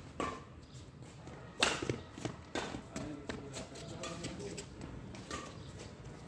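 Badminton rackets striking a shuttlecock back and forth in a rally: sharp hits roughly a second apart, the loudest about one and a half seconds in.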